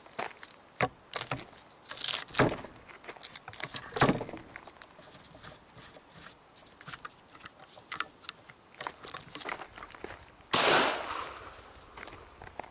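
Scattered clicks and rustling of hands working the pistol rest and trigger string, then a single 9 mm pistol shot about ten and a half seconds in, with a trailing echo. The pistol is a Glock 19 slide on a Glock 26 frame, firing only after a very heavy pull on its trigger.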